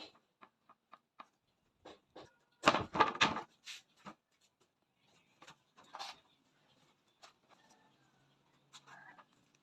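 Scattered light clicks and knocks, with a louder cluster of clattering knocks about three seconds in.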